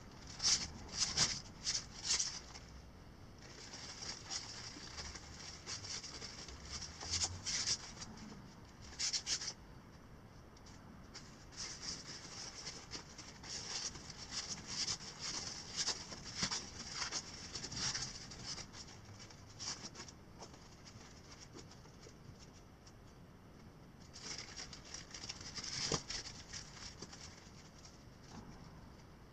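Nylon stuff sacks and backpack fabric rustling and crinkling as gear is handled and packed by hand, in irregular bursts with a pause of a few seconds about two-thirds of the way through.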